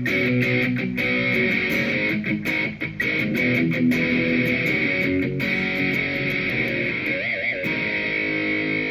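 Electric guitar, an Epiphone Les Paul Prophecy fitted with Gibson pickups, played with both pickups on. It strums chords with sharp pick attacks, then lets notes ring with a wavering bend near the end. The tone has a good punch to it but is not too sharp.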